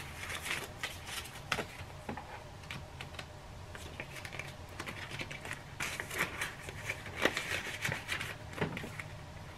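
Paper banknotes rustling and flicking as they are handled and slid into a paper cash envelope in a ring binder, with irregular light taps and shuffles.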